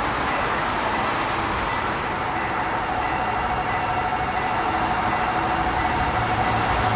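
Steady traffic and train noise with a steady high tone that comes in a couple of seconds in, and a low rumble growing louder near the end as a train approaches the level crossing.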